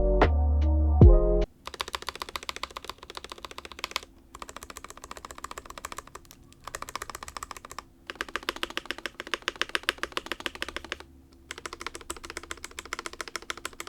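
A short stretch of beat music, then rapid runs of clacking key presses on the stabilized keys of an Akko ACR 75 keyboard kit, whose plate-mount stabilizers have just been modded. The runs are broken by brief pauses.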